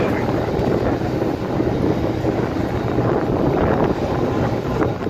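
Steady hum and rush of air inside a parked Airbus A320neo's cabin before engine start, from the air-conditioning ventilation.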